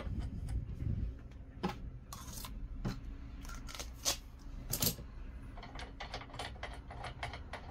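Small metal clicks and taps at the spindle of a Proxxon PF230 mill/drill head as the end mill is drawn out of the loosened collet and the collet nut is unscrewed by hand. A few separate clicks come first, then a quicker run of ticks over the last couple of seconds.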